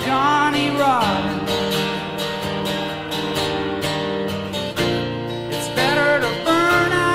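Instrumental break of a folk-rock song: strummed acoustic guitar chords under a harmonica melody, whose notes bend near the start and again about six seconds in.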